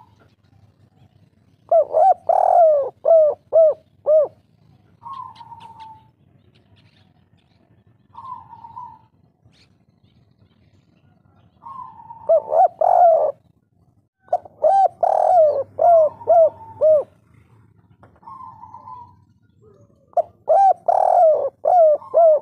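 Spotted dove cooing in the 'kuk 3' style valued by Indonesian dove keepers. It gives four loud phrases, each a short string of about five falling coos, with softer single higher notes between the phrases.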